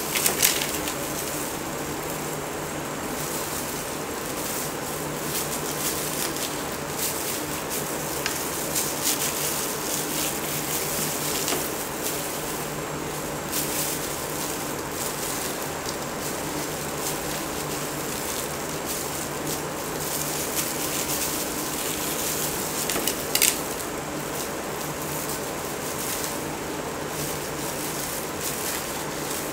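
Steady hiss and hum of kitchen background, with light handling sounds as fish cake is threaded onto wooden skewers on a wooden cutting board, and two short sharp knocks, one at the very start and one near the end.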